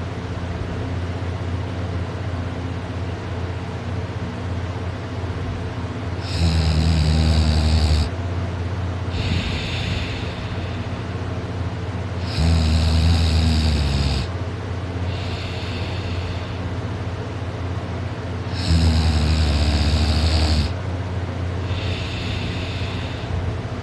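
A person snoring in sleep, kinda loud: three big snores about six seconds apart, each lasting one and a half to two seconds and followed a second later by a softer, shorter one, over a steady low hum.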